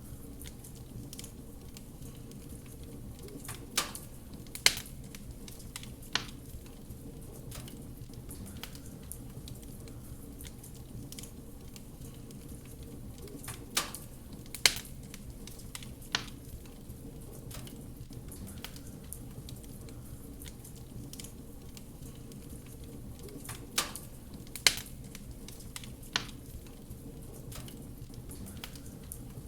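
Wood fire crackling over a steady low rumble, with sharp pops in groups of three that recur about every ten seconds.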